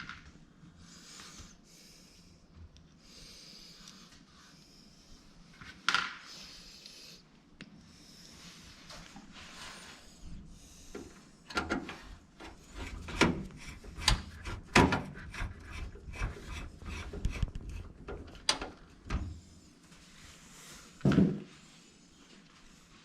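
Computer hardware being handled and fitted during a PC build: soft rubbing and scraping, then a run of sharp clicks and knocks in the second half, loudest near the end.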